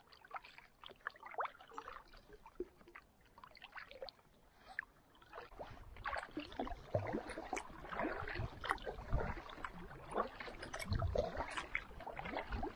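Water trickling and lapping around a canoe, then from about six seconds in a louder run of paddle strokes, the double-bladed paddle splashing in and out with water dripping off the blade.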